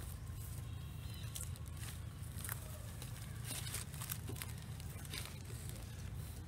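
Dry leaves and undergrowth rustling and crackling as a long-tailed macaque rummages through them for food. The crackles are short and scattered, over a steady low rumble.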